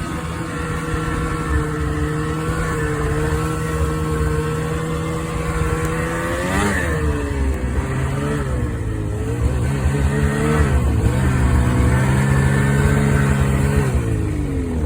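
Motor vehicle engine running steadily, its pitch shifting up and down a few times as the revs change.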